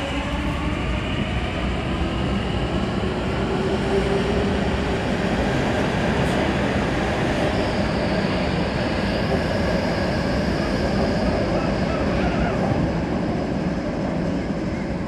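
MTR Kwun Tong Line train pulling out of the station and accelerating into the tunnel, a steady rumble of wheels on rail with an electric motor whine rising in pitch as it gathers speed.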